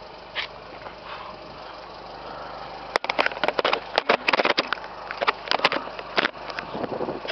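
2012 Fiat 500's engine idling steadily, heard at the tailpipe. From about three seconds in, a rapid run of knocks and scrapes from the camera being handled and set down on the paving stones drowns it out.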